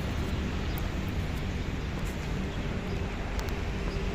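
Wind rumbling on the microphone over the faint, steady drone of a distant RC Cessna 182 model plane's motor in flight.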